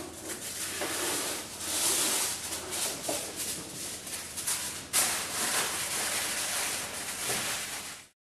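Kitchen wrap being pulled out of a drawer dispenser, a continuous crinkling rustle full of small crackles, with a sharper crackle about five seconds in; it cuts off suddenly near the end.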